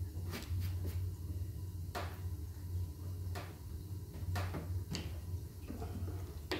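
A handful of scattered light clicks and taps from hands and tools working clay for the pig's ears and tail, over a steady low hum.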